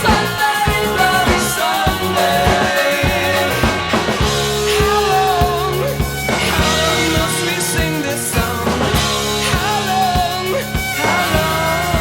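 Rock band recording: a driving, regular drum beat under bass and guitar, with a voice singing a wavering melody line over it.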